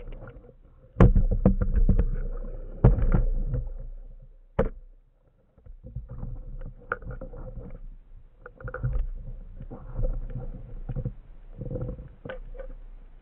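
Underwater rumbling of water moving around a speargun-mounted camera housing, with sharp knocks and clicks; the loudest knocks come about a second in and near three seconds, then the rumbling goes on lower and uneven.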